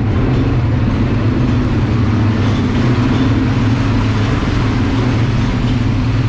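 ATV engine running at a steady speed, an even drone with rumbling noise over it.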